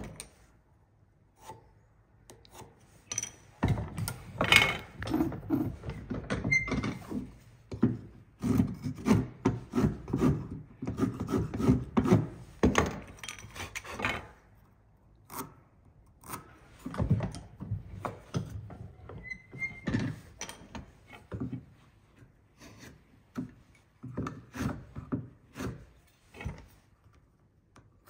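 Marking gauge pin scoring gauge lines into timber: several stretches of rapid scraping strokes along the wood. Short knocks come between them as the rails are handled and turned.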